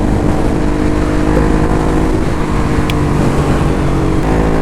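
Ducati Hypermotard engine running under way at a fairly steady speed, its note shifting slightly about four seconds in.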